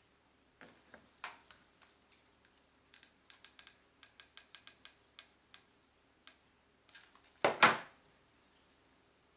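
A hot glue gun in use on a fabric lampshade: a run of sharp light clicks, several a second, from the trigger being squeezed to feed the glue stick. Near the end comes a single louder clatter of the gun or shade being handled on the wooden table.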